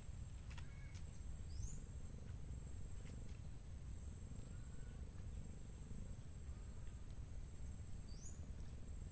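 Insects calling in one steady high-pitched tone over a low rumble, with two short rising chirps about six seconds apart.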